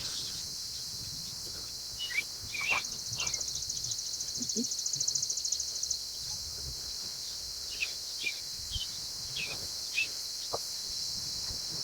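Outdoor ambience with birds chirping now and then over a steady high hiss, and a rapid, high pulsing buzz from about two to six seconds in.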